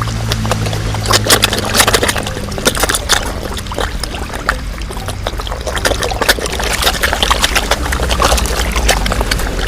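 Water in a koi pond splashing and trickling, with many quick, irregular little splashes over a steady wash of water.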